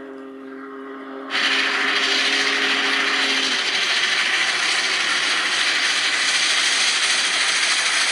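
Steam locomotive sound: a chime whistle holds a steady multi-note chord, and about a second in a loud, steady hiss of steam and running train starts abruptly. The whistle dies away around three and a half seconds in.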